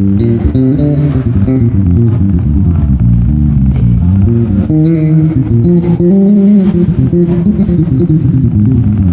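Yamaha TRB1005J five-string electric bass played, a quick run of changing low notes with some higher notes and chords.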